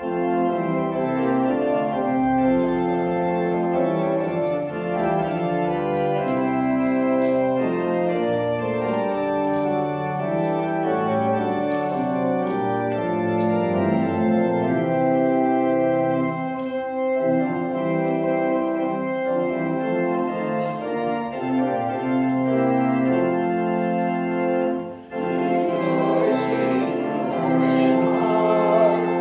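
Organ playing slow, sustained chords. It breaks off briefly near the end and resumes.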